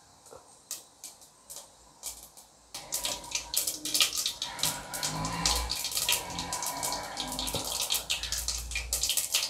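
Mustard seeds and urad dal in hot oil, spluttering. A few scattered pops at first, then from about three seconds in a dense, steady sizzling crackle as the seeds start popping in earnest.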